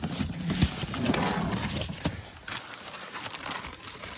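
Irregular knocks, clicks and rustling from handling a car door and its trim.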